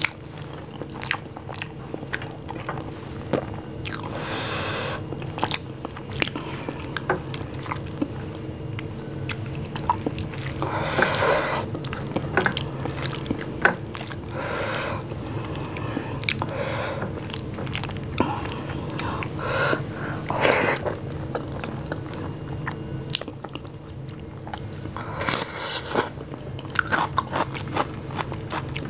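Close-miked eating sounds: wet chewing and lip smacks of rice mashed with bhorta, and squishing as fingers knead rice on a china plate, with several longer wet bursts. A steady low hum runs underneath.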